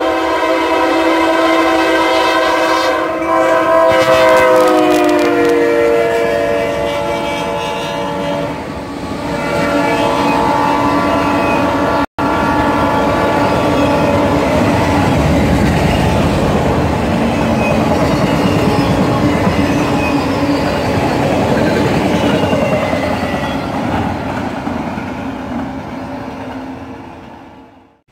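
Freight train passing: the locomotive's multi-tone air horn sounds for several seconds, its pitch dropping about four to five seconds in as it passes, then the freight cars rumble and clatter by steadily until the sound fades near the end. A brief dropout cuts the sound about twelve seconds in.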